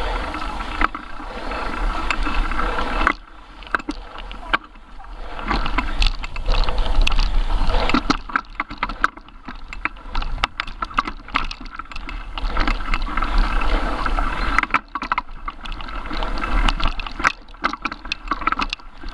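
Mountain bike riding down a forest trail covered in leaves: tyres rolling over dirt and dry leaves, with many short rattles and knocks from the bike over bumps, under a low rumble of wind on the microphone.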